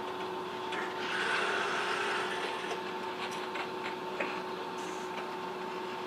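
Steady machine hum, with a hissing whir that swells and fades about a second in. A few light clicks and taps follow as small gearbox parts and a screwdriver are handled on a wooden workbench.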